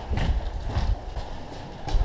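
Footsteps on concrete stairs: a few separate, uneven steps with rustling in between.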